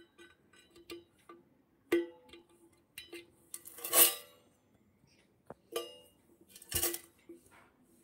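Indian ringneck parakeet's beak tapping and clinking on a stainless steel plate: scattered light taps, with a few louder ringing metallic clanks, the loudest about four seconds in and another near seven seconds.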